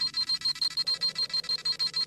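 Dragon Ball Z scouter sound effect: a rapid, even train of high-pitched electronic beeps, about six a second, over a low hum. This is the scouter scanning a power level.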